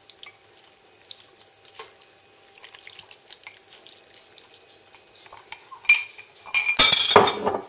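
Seasoned rice vinegar (vinegar, sugar and salt) being poured from a cup onto cooked sushi rice in a glass dish: a faint trickle and patter of liquid. About six seconds in come louder, sharp handling noises, twice.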